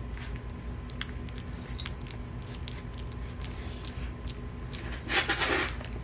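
Three-week-old Rottweiler puppy eating wet puppy mush from a stainless steel pan: many small wet clicks of its mouth in the mush over a steady low hum, with a louder burst of noise about five seconds in.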